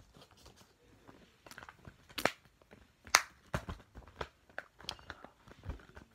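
Plastic Blu-ray case and its paper insert being handled and snapped shut: a run of irregular clicks and crinkles, with the two sharpest clicks about two and three seconds in.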